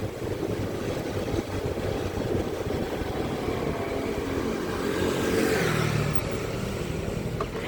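Motorcycle running steadily along a road, engine and road noise together, swelling slightly about five seconds in.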